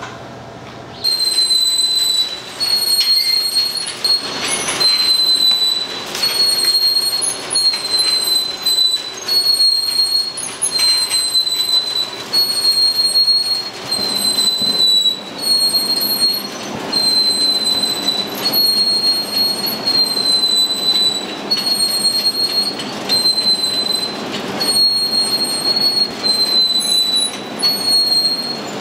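A machine's high-pitched squeal, repeating in a steady rhythm about once a second, over a bed of kitchen clatter.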